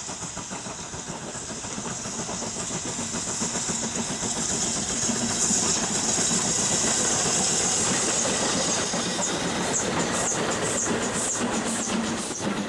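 Two steam locomotives, BR Standard Class 7 No 70000 Britannia leading GWR King class No 6024 King Edward I, working a train past at speed: quick, overlapping exhaust beats that grow louder as they approach. Near the end the coaches pass and their wheels click over the rail joints.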